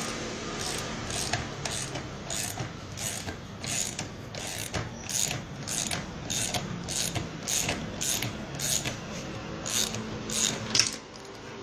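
Hand ratchet wrench with a 17 mm socket clicking about twice a second as it turns the bolt of a crankshaft bearing puller on a motorcycle crankshaft.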